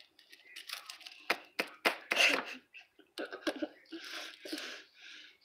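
A plastic wrapper being crinkled and torn open by hand, with a few sharp snaps and a crackle, followed by a run of short breathy giggles.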